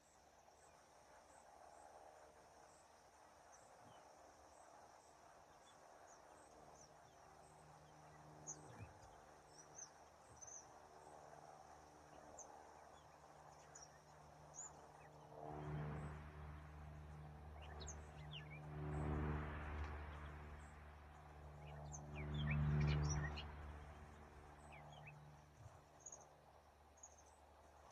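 Faint outdoor ambience with small birds chirping now and then. A low engine hum runs underneath and swells louder three times in the second half.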